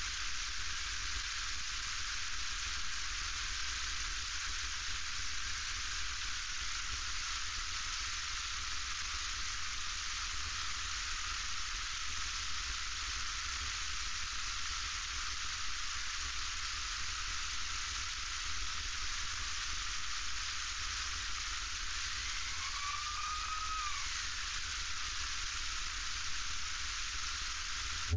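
Steady, even hiss of cabin noise inside a light aircraft taxiing with its propeller turning, over a low rumble. A short tone rises and then falls about three-quarters of the way through.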